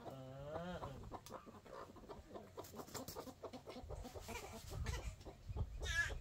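Domestic chickens clucking in a rapid string of short clucks, with a longer wavering call in the first second and another short call just before the end.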